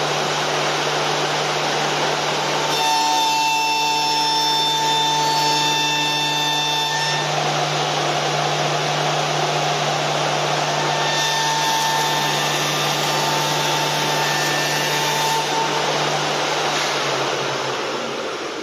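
CNC wood turning center running: a steady motor hum under a loud rushing noise, with a high whine that comes in twice for a few seconds. Near the end the hum drops in pitch and the sound falls away as the machine slows.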